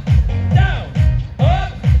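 Upbeat music played loud, with a heavy kick drum on every beat, a little over two beats a second, and a melody line over it.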